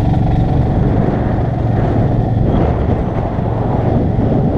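Golf cart driving along a paved road: a steady low rumble of running noise and wind buffeting the microphone.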